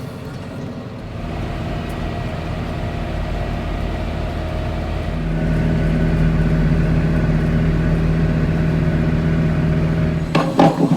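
John Deere 6430 tractor engine running and picking up speed, with a steady drone joining about halfway through. Metallic clanking and clattering starts near the end.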